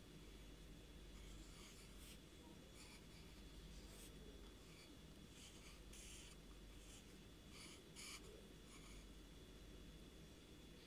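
Pencil scratching on paper in a series of short, irregular strokes, faint, as the outlines of a drawing are drawn.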